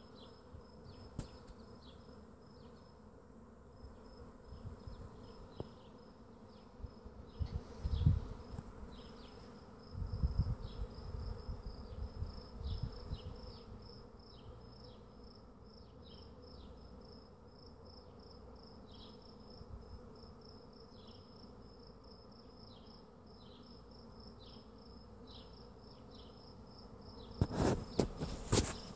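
A swarm of bees buzzing in the air with a steady hum as the swarm settles on a tree branch. Short high chirps repeat over it, and low rumbles break in a few times, the loudest near the end.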